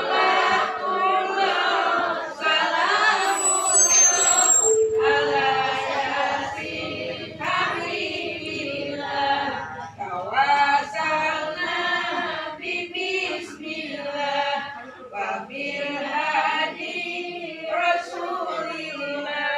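A group of women's voices chanting together in unison.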